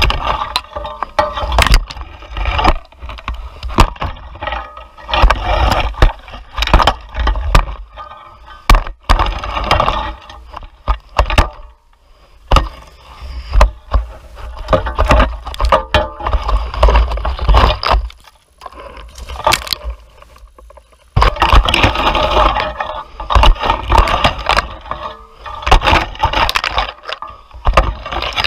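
A metal-tined rake dragging and scraping through cut bramble stems and dead brush, in irregular strokes, with frequent cracks and snaps of twigs.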